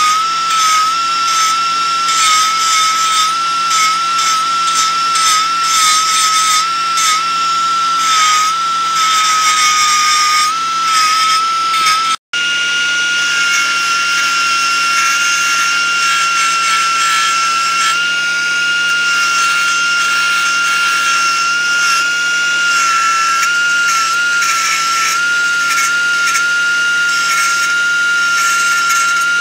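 Finger belt sander running with a steady high whine and a gritty grinding hiss as its 120-grit belt grinds a TIG weld flush on a thin wrought iron leaf. The sound cuts out for an instant about twelve seconds in, then carries on at a slightly higher pitch.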